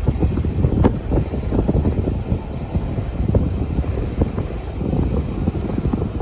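Frozen river in midwinter: a dense low rumble full of small knocks and crackles, with one sharper crack about a second in, and wind buffeting the microphone.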